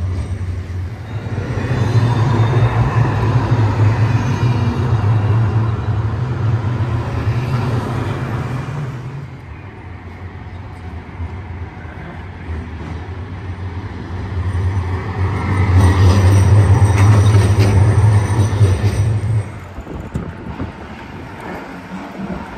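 Modern low-floor city trams running past on street track: a low rumble with wheel and rail noise, in two passes. The first swells about a second in and fades after about nine seconds. The second, louder one runs from about fifteen seconds until it cuts off sharply near twenty seconds.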